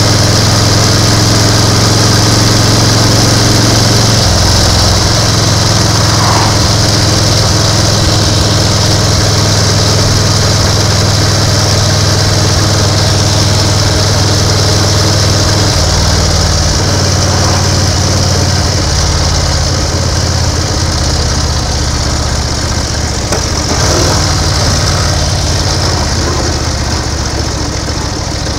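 1930 BSA 770 cc V-twin motorcycle engine running on the road. Its low, steady note shifts several times and eases a little near the end, under a constant hiss of wind and road noise.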